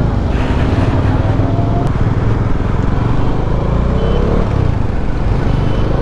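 Motorcycle on the move: steady engine and wind noise, with the engine's pitch drifting faintly up and down.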